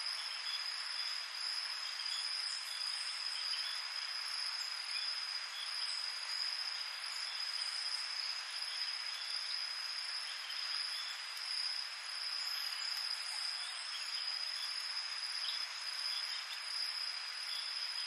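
Night insect chorus of crickets: one steady high-pitched trill that never breaks, over a dense hiss of many more insects, with a few faint short chirps scattered through it.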